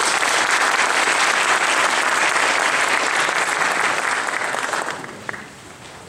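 Audience applauding, the clapping dying away about five seconds in, followed by a single short click.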